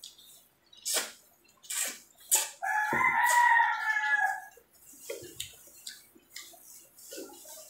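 Close-up eating sounds, sharp smacks and crunches of chewing seafood, and a rooster crowing once midway for about two seconds, the loudest sound.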